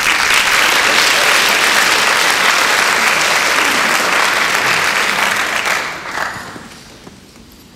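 Audience applauding. The clapping starts suddenly, holds steady for nearly six seconds, then dies away.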